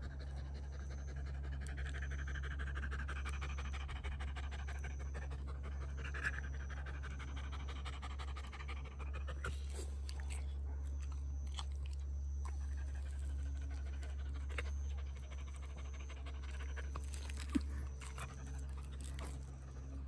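A dog panting rapidly and steadily over a constant low rumble, with a few sharp clicks, the loudest near the end.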